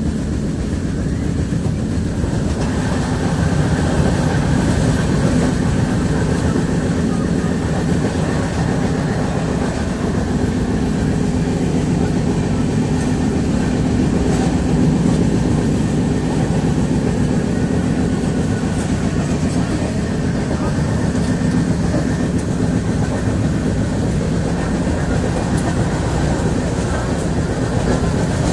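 A loud, steady rumbling noise, even and continuous throughout.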